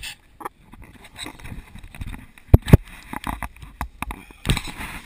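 Scattered knocks and thumps of handling and gear aboard a small inflatable boat with a wooden floor, with two loud sharp knocks about two and a half seconds in and a short burst of rustling noise near the end.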